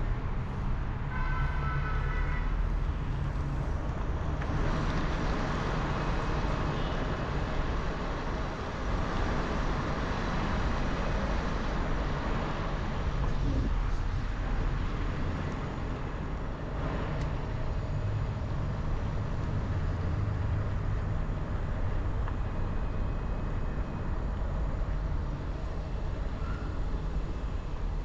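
Steady outdoor background noise with a strong low rumble and a hiss. About a second in there is a short pitched honking call.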